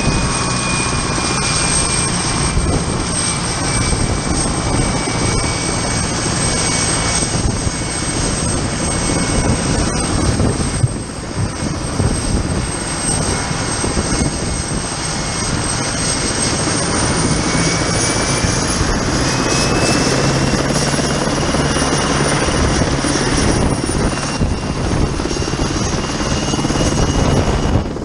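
PZL W-3A Sokol helicopter's twin turboshaft engines and main rotor running on the ground. A high turbine whine rises in pitch a little past halfway as power comes up before lift-off.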